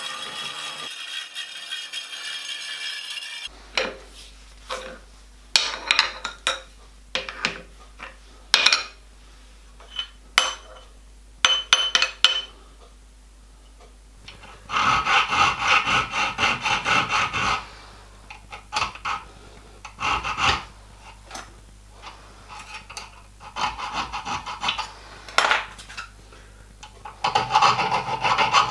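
Elliott Junior horizontal milling machine's cutter running through a small metal part for the first few seconds. After it stops come clinks and knocks as the part is handled, then bursts of rasping hand-file strokes on the milled part, loudest a little past the middle and again near the end.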